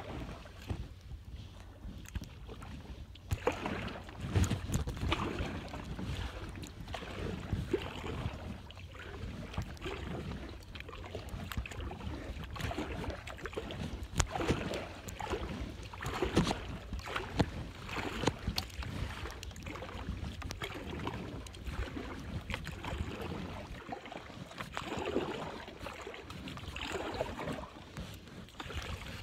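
Kayak paddle strokes: the blades dipping and splashing in the water in uneven swishes every second or two, with a low wind rumble on the microphone.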